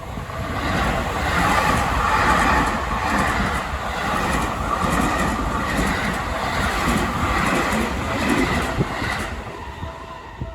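Seibu Ikebukuro Line electric train passing a level crossing: a rushing run of wheel and motor noise that builds about a second in, with repeated clacks of the wheels over rail joints, then fades near the end.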